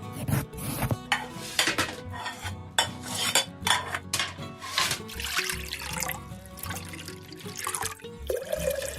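Spatula scraping and knocking in a pan as egg fried rice is stirred, with background music.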